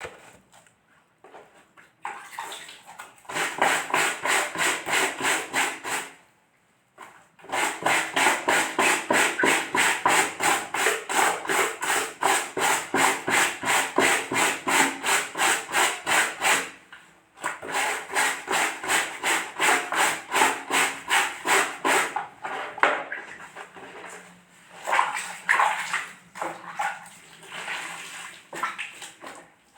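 Wet laundry being scrubbed by hand, in fast, even back-and-forth strokes about three a second, broken by two short pauses; the strokes become irregular in the last few seconds.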